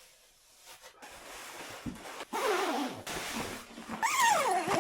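An animal call: two cries that fall in pitch, one about two seconds in and a higher, louder one about four seconds in.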